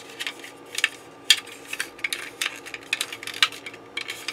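Hard plastic model-kit parts clicking and tapping against each other as a Bandai 1/1000 Gaiderol-class hull is handled and its pieces fitted together: an irregular run of small, sharp clicks, about a dozen.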